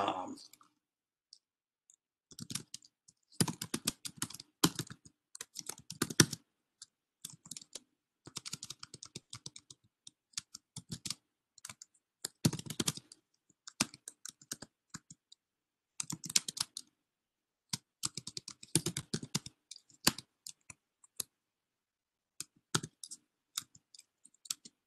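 Computer keyboard being typed on, rapid keystrokes in bursts of a second or two with short pauses between them.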